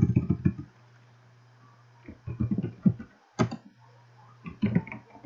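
Computer keyboard typing in short bursts of keystrokes, with a single key click in between. A steady low hum runs underneath.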